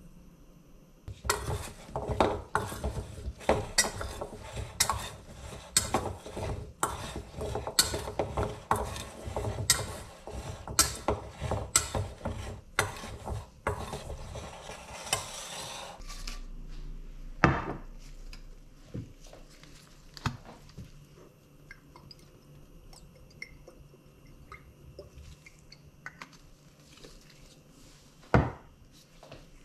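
A metal spoon mixing cut zucchini in a stainless steel bowl: rapid clinking and scraping against the bowl, which stops about halfway through. After that, a few separate knocks, one loud one near the end.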